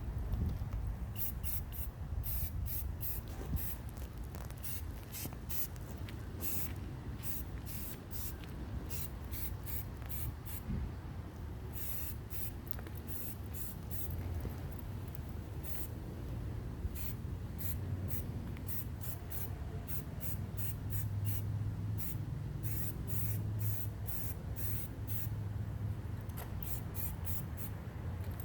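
Aerosol spray-paint can being sprayed in many short bursts, a brief hiss each time the nozzle is pressed, over a low steady hum.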